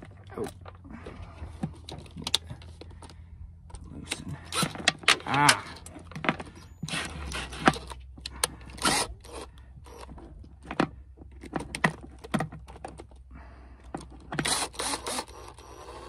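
Clinks and scrapes of metal battery cable terminals and bolts being handled, with several short runs of a cordless drill turning a terminal bolt.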